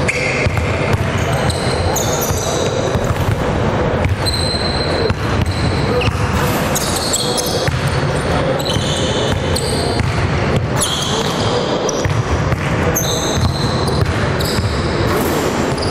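Basketballs bouncing on a hardwood gym floor during a drill, with sneakers squeaking and players' voices echoing around the hall.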